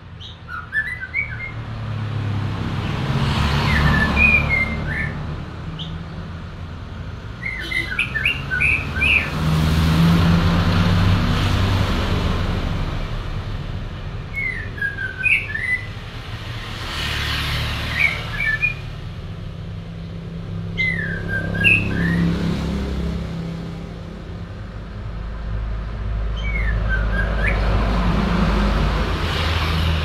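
White-rumped shama (murai batu) singing, about seven short phrases every few seconds with pauses between. A low rumble of passing vehicles swells and fades underneath.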